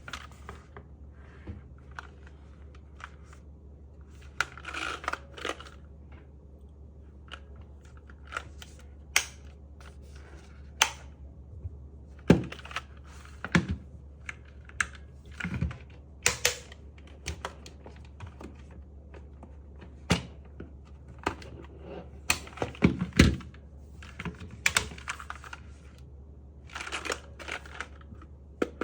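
Scattered clicks and taps from handling a Zifriend KA646 mechanical keyboard and its keycaps, with a few short scraping rustles, over a steady low hum.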